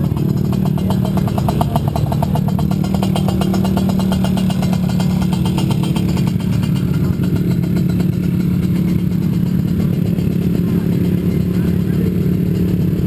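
Several race ATV (quad) engines running together, a steady engine drone with no big revs.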